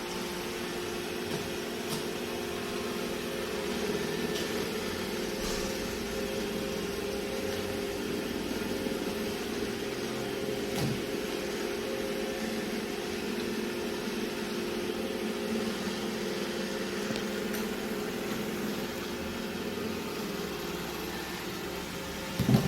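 Robot vacuum running: a steady motor hum with a few held tones and faint ticks. A short thump comes right at the end.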